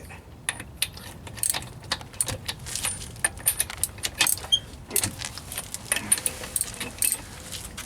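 Torque wrench ratcheting and clicking as the wheel's lug nuts are tightened, with sharp metallic clicks and clinks of tool on nut coming in quick irregular runs.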